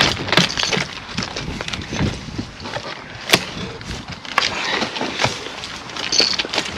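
Electric demolition breaker chiselling into a brick wall, with the wall's bricks and mortar cracking apart and several sharp cracks as pieces break off.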